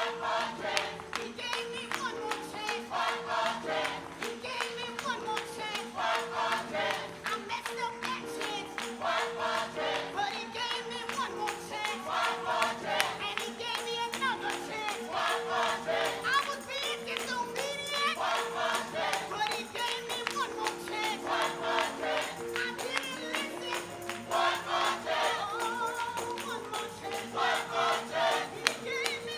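Gospel choir singing with a steady beat, tambourine and sustained organ or keyboard chords.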